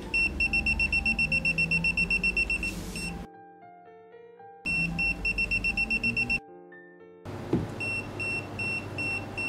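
The MUL-318 digital multimeter's non-contact voltage buzzer beeping, signalling live AC voltage near the probe tip. It beeps fast, about eight times a second, in two runs separated by short pauses, then more slowly, two or three beeps a second, near the end. Soft background music plays underneath.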